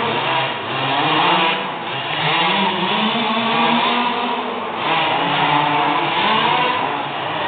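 Several 1/5-scale petrol RC buggies' small two-stroke engines running together, their overlapping buzzing pitches rising and falling as the drivers throttle up and back off around the track.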